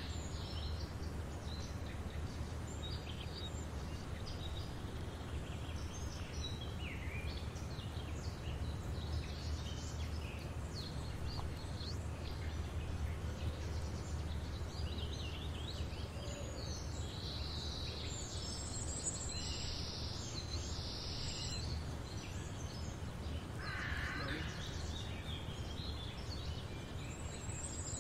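Outdoor ambience: a steady low rumble under many short, high bird chirps and calls, with a louder, lower bird call about four seconds before the end.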